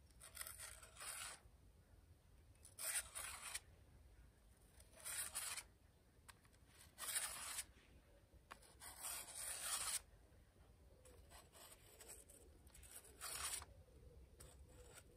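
Billhook blade scraped across a flat sharpening plate to hone its bevelled edge: about six separate rasping strokes with pauses between them.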